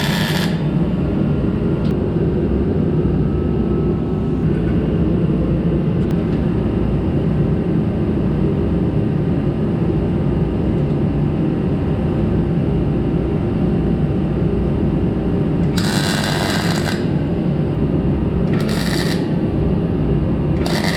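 Steady, loud low rumble of a workshop heater, with a few short hissing bursts about a second long at the start and in the second half.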